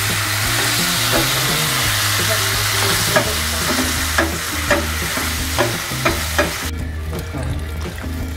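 Vegetables and sauce sizzling in a hot nonstick frying pan, with the liquid just added to deglaze it, while a wooden spatula stirs them and knocks against the pan several times. The sizzling hiss cuts off suddenly near the end.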